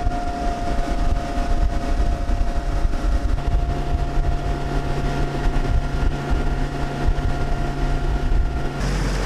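Outboard motor of a small center-console boat running steadily under way, a constant whine over a low rumble, with wind on the microphone. The sound changes abruptly near the end.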